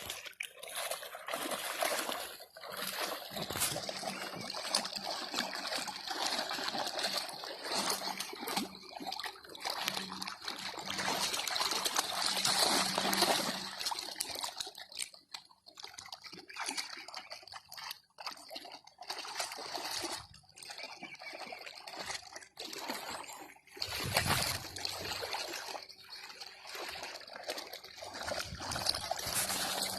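Irregular splashing and sloshing of water, with a louder stretch about four-fifths of the way through.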